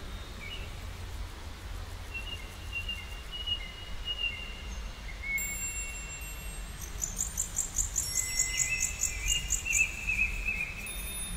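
Birds singing outdoors: long thin whistled notes, then from about seven seconds in a rapid run of high chirps, about four a second, for some three seconds. A low steady rumble lies underneath.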